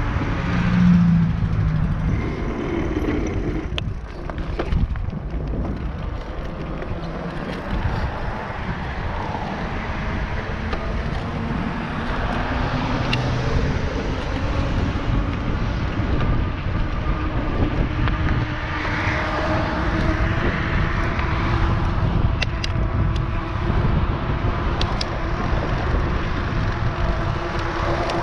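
NCM Aspen e-bike riding along a trail: a steady motor whine over a low rumble of tyres and air, with a few faint clicks near the end.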